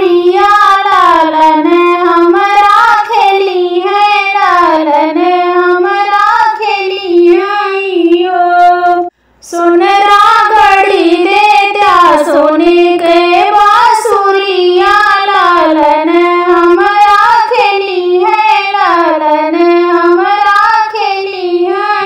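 A woman sings a sohar folk song solo in a high voice, with no instruments. The singing breaks off for a moment about nine seconds in, then carries on.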